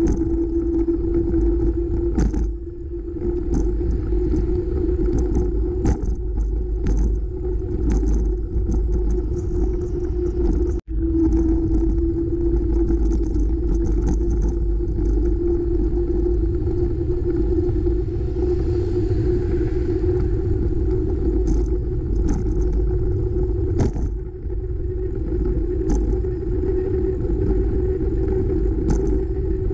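Wind rumble and road noise on a camera mounted on a moving bike, with a steady hum and scattered clicks and rattles from the bike over bumps in the road. The sound cuts out for an instant about eleven seconds in.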